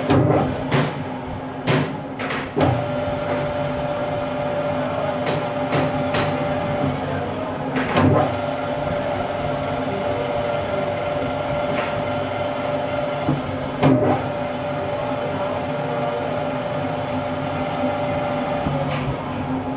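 Metal lathe running, spinning a square metal block in its chuck while a boring bar cuts a bore into the face: a steady machine hum with a held tone. A few sharp knocks break in at irregular intervals.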